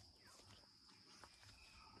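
Near silence: faint outdoor background with a steady high-pitched tone and a few soft ticks.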